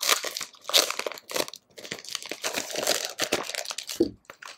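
Packaging crinkling and rustling as it is handled and pulled open, a dense run of irregular crackles, ending in a short soft thud near the end.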